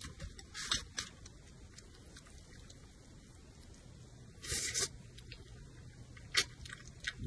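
Close-up eating sounds: wheat noodles being slurped and chewed, with short sharp clicks and taps from chopsticks and a porcelain bowl. The longest slurp is about half a second long, some four and a half seconds in.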